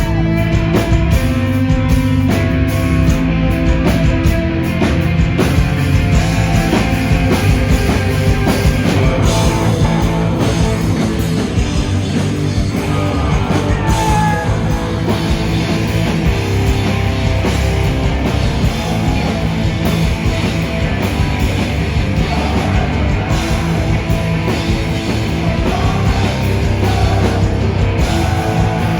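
Loud, dense punk rock: a band playing distorted guitars and a drum kit, with some singing.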